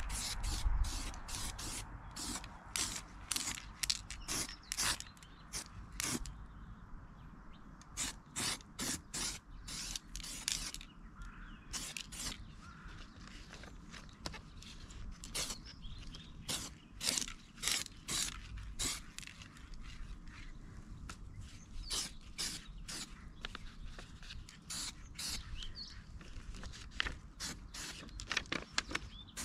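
Hand tools working on a car: irregular runs of sharp metallic clicks and knocks, at times several a second.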